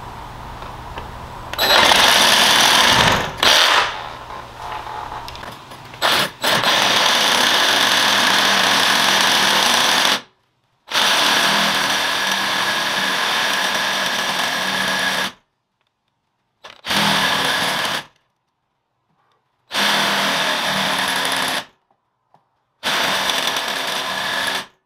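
Cordless DeWalt reciprocating saw with a hacksaw blade cutting through a Humminbird Mega 360 transducer shaft, in sped-up footage. The saw runs loud and steady in several runs of one to four seconds, each starting and stopping abruptly. The first comes about two seconds in and the rest follow from about six seconds on.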